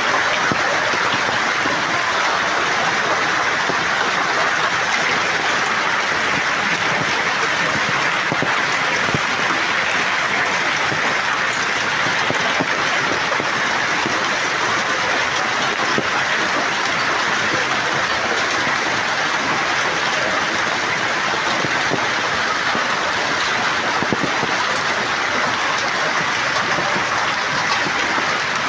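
Heavy hail pelting the road, parked vehicles and stall roofs: a steady, dense, unbroken hiss of countless small impacts.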